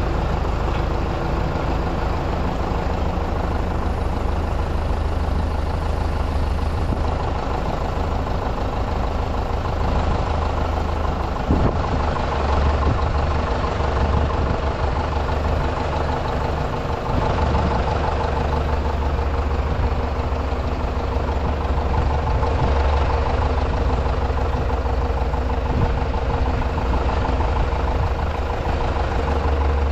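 A heavy vehicle engine running steadily at a low, even speed, with one brief knock near the middle.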